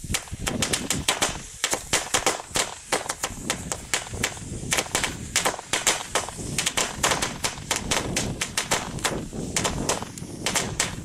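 A Comet firecracker string going off: a rapid, irregular run of sharp bangs, several a second, that doesn't let up.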